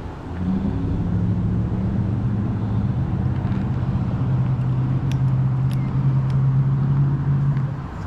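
A motor vehicle's engine humming steadily, its pitch dropping a little about three seconds in, with a few faint clicks around five to six seconds in.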